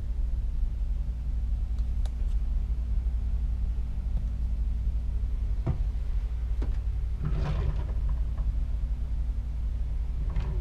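Steady low machinery hum aboard a cruise ship, with a few sharp knocks and a short clatter about seven seconds in.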